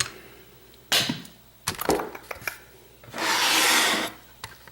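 Handling of a lock and small tools: a few sharp clicks and knocks, then a scrape lasting about a second a little after three seconds in.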